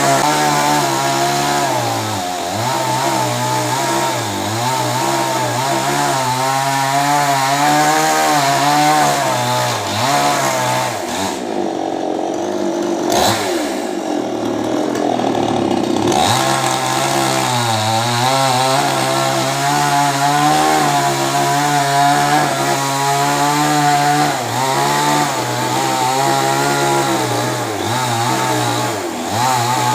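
Chainsaw running and cutting a coconut palm trunk, its engine note wavering under load. For a few seconds around the middle the engine eases off to a lower, duller note, then picks up again.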